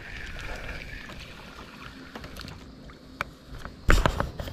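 A small crappie reeled in on a spinning rod, splashing loudly about four seconds in as it is lifted out of the water.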